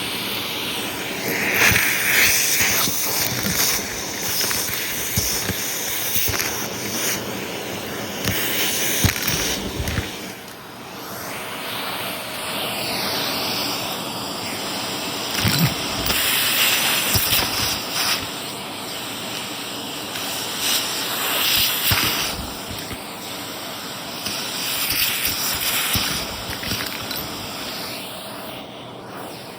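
Shark vacuum cleaner running, its motor giving a steady high whine over a rushing hiss, with scattered clicks and rattles as a small mess of debris is sucked up.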